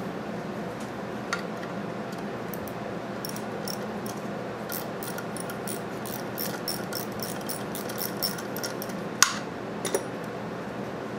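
Small ratchet wrench clicking in runs of quick clicks as it turns the lock nuts off a small engine's connecting-rod cap, then a louder clack a couple of seconds before the end. A steady hum runs underneath.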